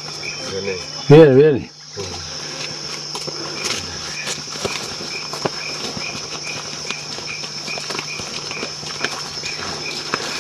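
Rainforest insects: a steady high-pitched drone, with a second, lower insect call pulsing about twice a second over it. Scattered light clicks of footsteps on the forest trail.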